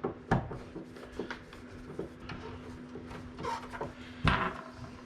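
A wall light switch being fitted back into its electrical box: scattered clicks and knocks of hard parts being handled, the loudest a moment after the start and another about four seconds in.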